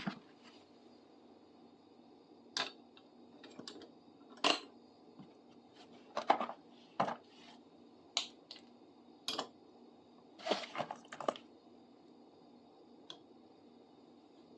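Small metal hand tools clinking and knocking as they are picked out of a bucket and set down, a dozen or so separate clinks spread irregularly, with a quick cluster of them about ten to eleven seconds in.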